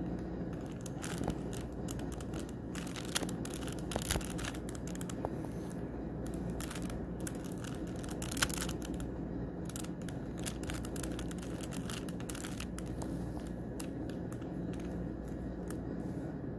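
Rubik's Cube being turned by hand: irregular plastic clicks and rattles as the layers are twisted, over a steady low hum.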